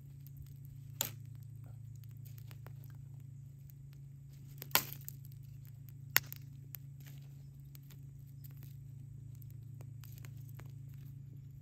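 Dry twigs snapping as kindling is broken by hand for a smoldering campfire: three sharp snaps, the loudest about five seconds in, with small crackles and clicks between. A steady low hum runs underneath.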